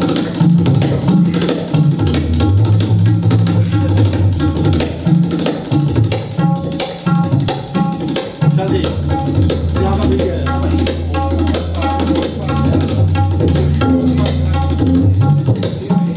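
Tabla played fast at an unbroken tempo, imitating a train crossing a river bridge. The bayan gives deep, booming 'dham dham' strokes whose pitch shifts, under rapid strokes on the dayan.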